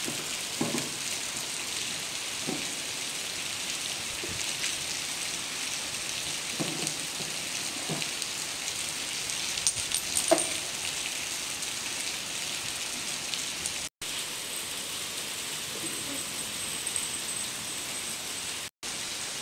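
Steady hiss of rain falling, with a few faint short knocks along the way.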